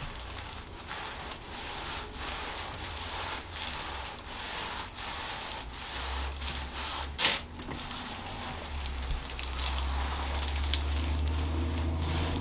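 Hands rubbing and rustling over the patient's body and clothing, with one sharp click about seven seconds in. A low steady hum runs underneath.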